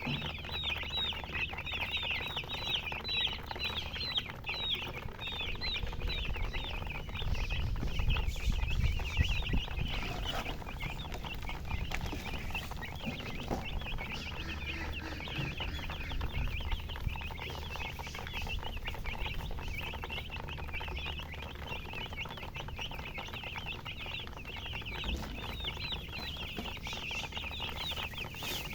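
A brood of baby chicks chirping nonstop: many short, high peeps, each sliding down in pitch, overlapping from several birds at once. A low rumble swells for a few seconds about a quarter of the way in.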